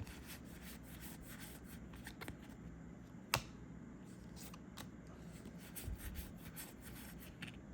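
Star Wars: Unlimited trading cards sliding and flicking against one another as they are leafed through by hand, with soft scattered clicks and one sharp snap a little over three seconds in.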